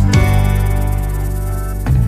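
Background music: a song's instrumental passage with sustained chords and a light beat.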